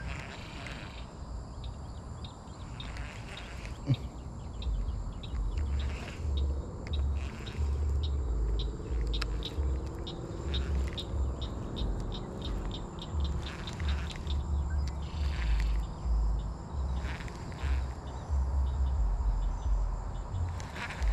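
Wind rumbling on the microphone in irregular gusts, with birds calling in short chirps over it and a single sharp click about four seconds in; a baitcasting reel is being cranked slowly by hand.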